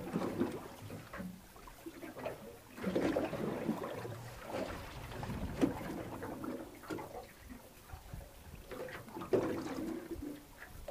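Water sloshing and splashing against the side of a boat as a hooked shark swims and swirls at the surface alongside, swelling and easing in uneven surges.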